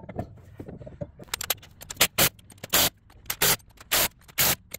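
DeWalt cordless impact gun fired in a series of short trigger bursts, spinning lug nuts onto a wheel hub. The bursts start about a second in and come every half second or so.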